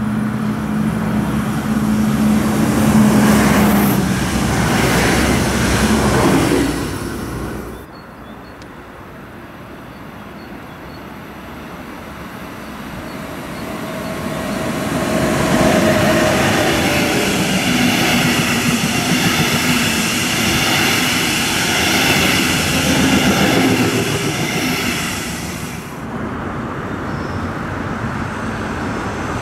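A red regional multiple unit passes on the line with a steady low hum, and then cuts away. A DB electric locomotive hauling double-deck coaches follows, approaching with rising rail noise and passing with steady whining drive tones.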